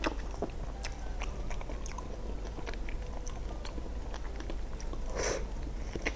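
A person eating a creamy dessert close to the microphone: soft chewing with scattered wet clicks and lip smacks, and one louder smack about five seconds in, over a steady low hum.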